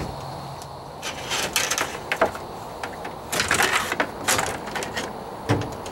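Fishfinder transducer cable being pulled by fish tape through a boat's wiring channel: irregular scraping and rustling in several pulls, loudest in the middle.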